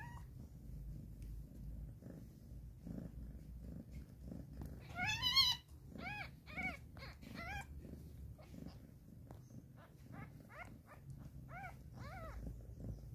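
Newborn kittens mewing while they jostle for a teat: one loud, wavering high squeal about five seconds in, then a run of short high-pitched mews about two a second, and another run near the end. A low, steady purr runs underneath.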